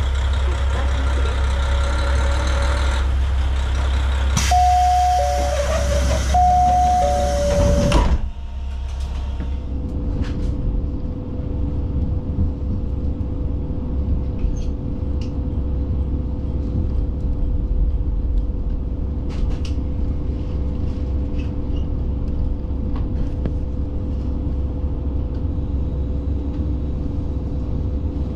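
Local diesel railcar running, with a two-note chime sounding twice about five seconds in. About 8 s in, the running noise stops abruptly and leaves the diesel engine idling with a steady low rumble, a faint steady whine and a few small clicks.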